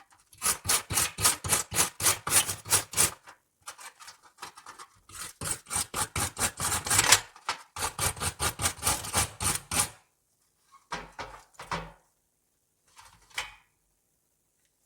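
Rusty steel scissors being scrubbed by hand with an abrasive, in quick back-and-forth strokes about four or five a second. The strokes come in several runs with short pauses and stop about ten seconds in; two brief handling knocks follow.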